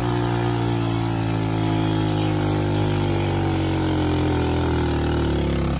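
Vehicle engine running steadily at low revs, its pitch sagging slowly.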